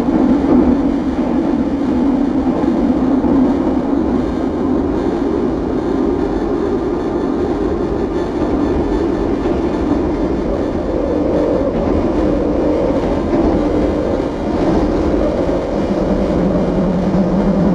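Experimental noise-music drone: a loud, dense rumbling wash with hazy pitched bands that slowly shift. A higher band comes in about eleven seconds in, and a lower one near the end.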